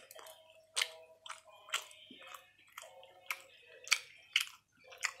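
Close-up chewing of a freshly toasted cheese-and-butter sandwich, with sharp crunches coming irregularly about every half second to second.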